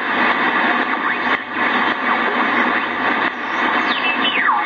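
Shortwave static hissing from the speaker of a 1970s Kentec BCL-1 communications receiver as its main tuning dial is turned. Near the end, whistles fall in pitch as the dial sweeps past station carriers.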